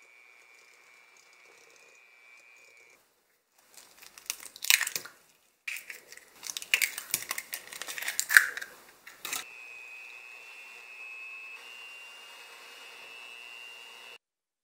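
Electric hand mixer running with a steady whine in a metal mixing bowl. It stops, and a burst of sharp crunchy crackling follows: eggs being cracked open. Near the middle the mixer starts again with its whine, beating in the two eggs.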